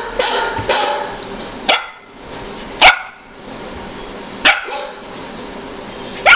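Golden retriever puppy barking: four short, sharp single barks about one to one and a half seconds apart, the second the loudest.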